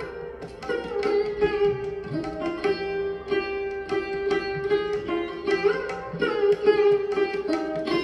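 Background instrumental music in an Indian classical style: a plucked string melody with quick notes and pitch bends over a steady drone.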